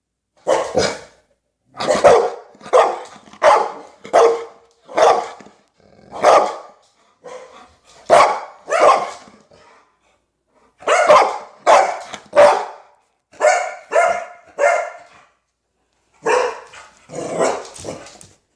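A dog barking over and over, about twenty loud barks in runs of several, with two short pauses between runs.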